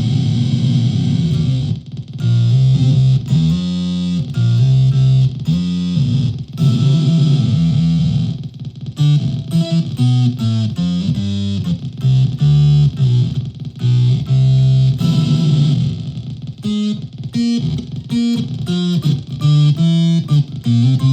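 Solid-body electric ukulele played through a home-built clone of the Dwarfcraft Robot Devil effects pedal, amplified by a PA speaker. The notes sustain heavily effected and, in the second half, break into fast choppy stutters: delightfully chaotic.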